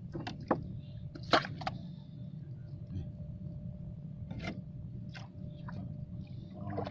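A steady low hum with a faint steady tone over it, broken by a handful of sharp knocks and clicks; the loudest comes about a second and a half in.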